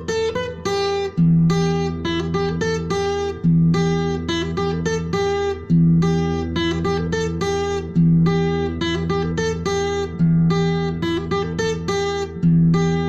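Acoustic guitar playing an instrumental piece: quick picked notes over a bass note that changes about every two seconds.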